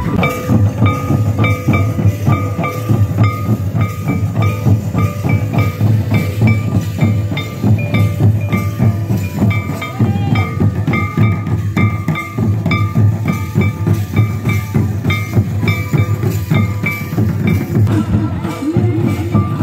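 Santali traditional dance music: barrel drums beaten in a fast, steady rhythm, with a short high melodic figure repeated over them.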